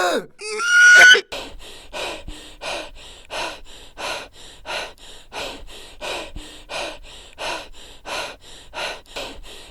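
A person's short cry and a rising, strained yell, then rapid heavy panting, about three breaths a second.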